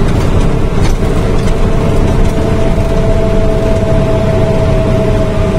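Old Scania truck's diesel engine running under way, heard from inside the cab as a loud steady rumble with road noise, and a steady whine that comes in about a second in and holds.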